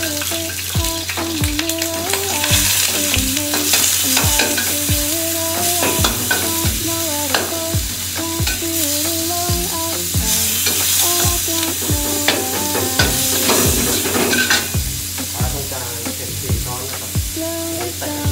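Minced meat sizzling in a hot wok, stirred and scraped with a metal wok ladle and spatula. Background music with a steady beat plays under it.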